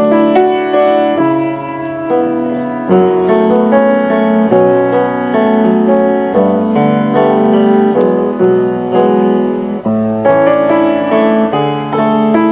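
Background piano music: a slow piece of chords and single notes, each note struck and left to ring.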